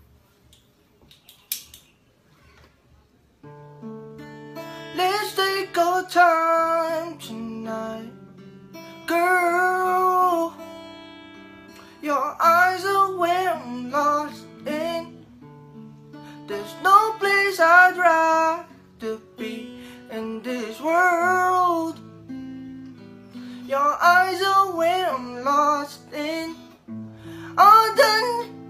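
An acoustic guitar playing chords under a voice singing in phrases of a few seconds each. It starts after about three seconds of near silence.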